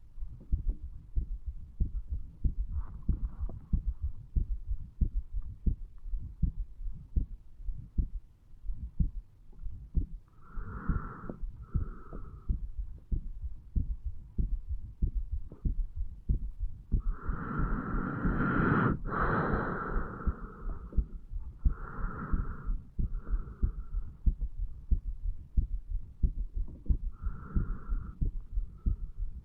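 Human heartbeat picked up on the chest over the mitral valve area: a steady run of low lub-dub beats. Several breaths come over it, with a wheezy hiss, the longest and loudest a little past the middle.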